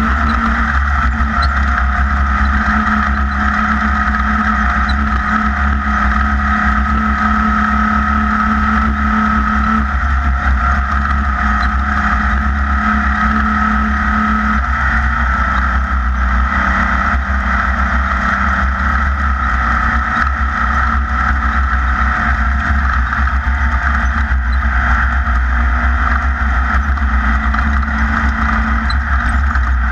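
A Class 1600 off-road race buggy's air-cooled VW engine runs continuously under way, with a heavy low rumble. Its pitch shifts slightly about ten and fifteen seconds in.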